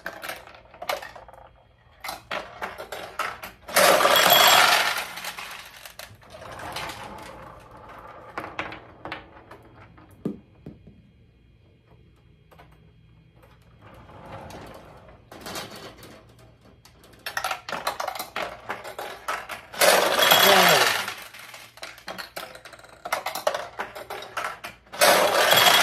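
Steel pachinko balls clattering and rattling in a vintage pachinko machine, with three loud bursts about four seconds in, around twenty seconds and at the end. Scattered clicks and knocks fall between the bursts, with a quieter stretch around twelve seconds.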